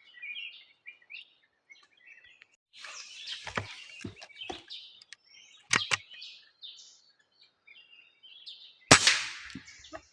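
Birds chirping, with a single sharp crack of a PCP air rifle shot near the end that fades over about a second. Before it come a stretch of rustling and two quick sharp clicks.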